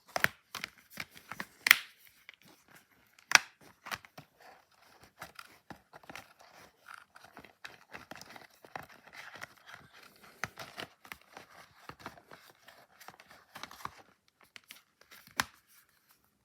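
DVD case and its packaging being handled: a few sharp plastic clicks and snaps, with a stretch of crinkling and rustling in the middle.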